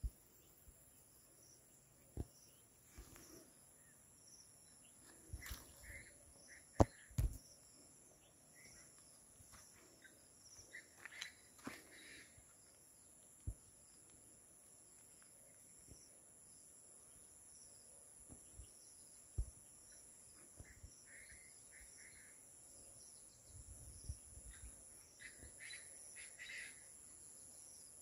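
Faint outdoor ambience: a steady high-pitched insect drone, a few short bird chirps, and scattered footsteps and knocks, the loudest about seven seconds in.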